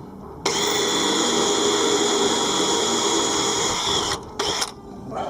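Power drill running for about three and a half seconds as a hole is drilled through the narrowboat's side for a through-hull fitting, then stopping, followed by a brief second burst.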